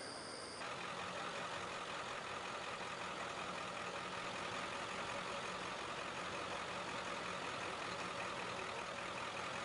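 A steady engine hum, like a heavy vehicle idling, under a constant hiss. It sets in about half a second in and holds even.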